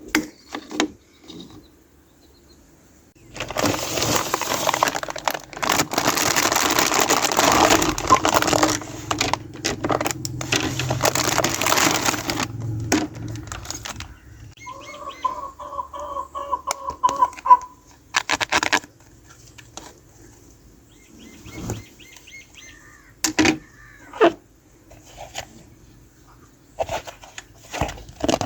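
Small plastic toy pieces and packaging being handled: a long stretch of rustling and crinkling, a short pulsing squeak of plastic rubbing on plastic, then scattered light clicks and taps as parts are set down or snapped together.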